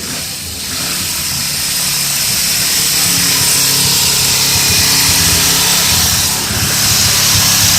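Auto race motorcycle engine running with a silencing muffler fitted, a steady rumble that grows louder over the first few seconds and dips briefly near the end.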